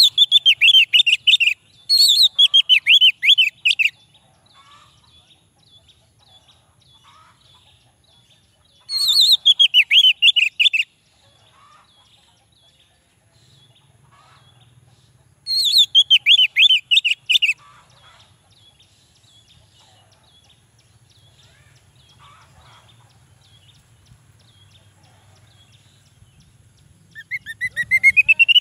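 Male orange-headed thrush singing in five phrases of rapid, sweet notes, each about two seconds long. The first four fall in pitch, with gaps of several seconds between them, and the last phrase, near the end, rises.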